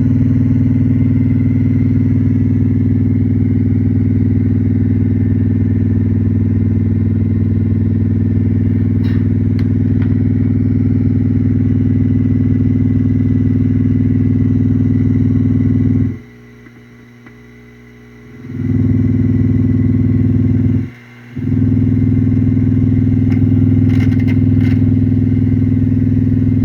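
Ciclotron Pop Line 350 amplifier head putting out a loud, steady low hum that sounds like a helicopter. It cuts out for a couple of seconds past the middle and again briefly a few seconds later. The hum comes from a failed 100 µF filter capacitor in the preamp power supply.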